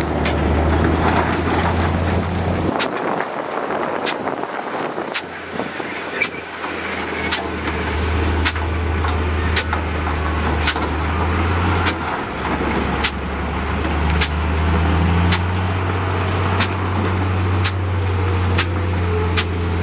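Crawler bulldozer's diesel engine running under load as it pushes dirt, its low drone rising and falling in strength several times. From about a third of the way in, sharp clicks come about once a second.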